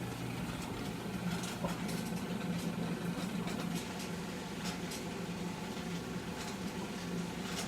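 Euhomy compact clothes dryer running: a steady low motor hum with irregular creaks and ticks as the drum turns. The owner wonders whether the creaking is normal, a fault, or a sign of too big a load.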